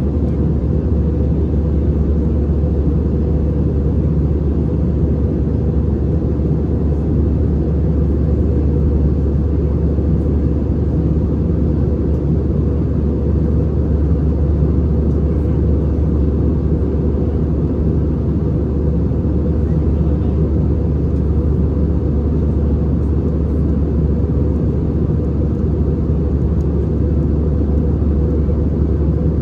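Steady, deep cabin roar of an Airbus A320-214 in flight, its CFM56 engines and the air rushing past the fuselage heard from a passenger seat, unchanging throughout.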